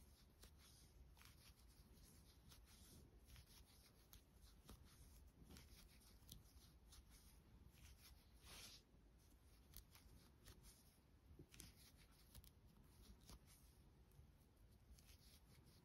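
Near silence, with faint irregular scratches and ticks of a metal crochet hook pulling aran yarn through a row of single crochet stitches.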